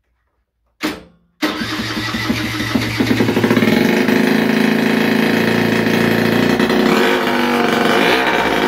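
Piaggio Quartz scooter's two-stroke engine, with no exhaust fitted, coughs once about a second in, then catches and runs as a loud racket, the revs shifting near the end. It is the engine's first start after a long standstill.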